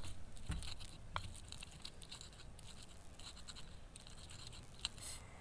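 A run of quick, irregular scratching and scraping strokes, with a few sharper clicks among them.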